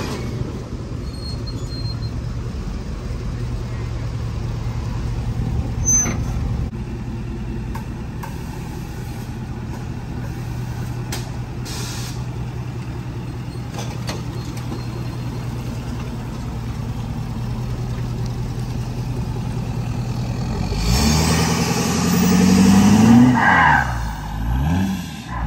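Lifted Ford Super Duty dually truck's engine idling with a steady low hum. About 21 s in it is revved: the pitch climbs and drops, then rises and falls again near the end.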